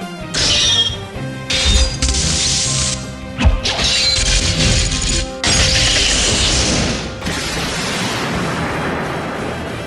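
Period-drama background music broken by a string of sudden crashing, clanging sound effects dubbed in place of sword strikes, the sharpest hit about a third of the way in, then a steady noisy rush over the last few seconds.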